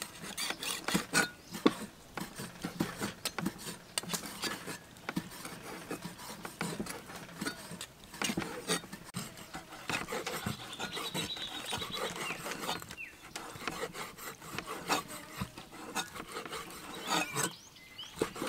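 Meat cleaver chopping cow intestine and tripe on a round wooden chopping block: a run of irregular knocks as the blade strikes the wood.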